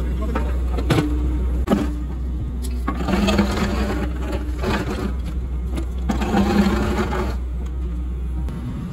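Sumitomo HA45W asphalt finisher running: a steady low engine hum with a rattling mechanical sound that swells twice, about three and six seconds in.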